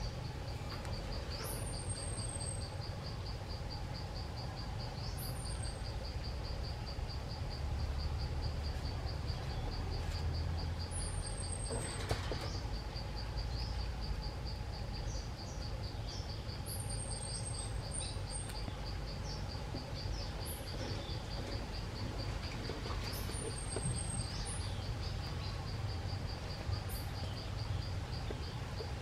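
Insects trilling steadily in a fast, even, high-pitched pulse, with short, very high chirps that fall in pitch every few seconds and a single click about twelve seconds in.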